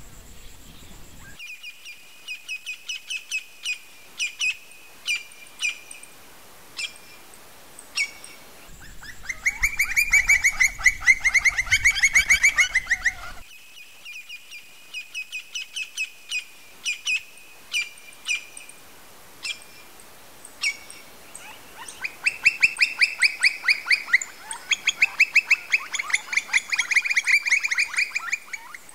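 Campo flicker calling: a string of spaced single call notes, and twice a long, fast run of the same note repeated many times a second, about nine seconds in and again from about twenty-two seconds in.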